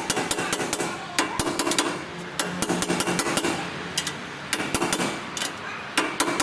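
Hammer blows on metal during axle oil seal work: runs of quick, sharp strikes, several a second, with short pauses between the runs.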